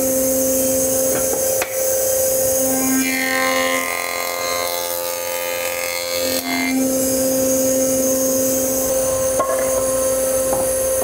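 Woodworking jointer running with a steady hum while a cherry board is fed across its cutterhead. The cutting noise thickens for a few seconds partway through.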